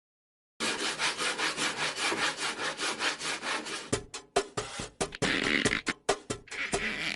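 Hand saw cutting wood in rapid, even back-and-forth strokes, about six a second, starting about half a second in; the strokes grow more irregular in the second half, with a few sharp knocks.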